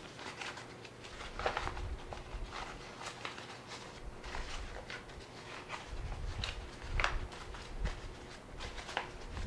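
Small black fabric softbox being handled and fitted onto a camera-mount light: rustling and scattered light clicks and taps, with a few soft knocks in the second half.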